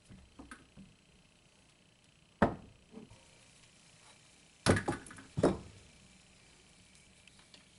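Several sharp knocks and clunks of tools and plumbing fittings being handled: a few light ones at first, a loud one about two and a half seconds in, then a loud close group of three near the middle.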